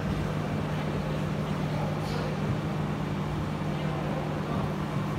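Steady low mechanical hum with a constant low tone, over faint room noise.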